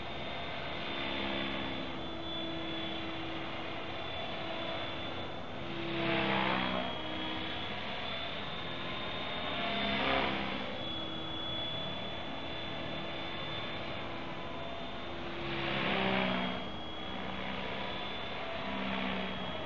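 Trim X-500 electric RC helicopter in flight: a steady high motor-and-gear whine over the chop of the main rotor. It swells louder three times, about six, ten and sixteen seconds in, as the helicopter passes close.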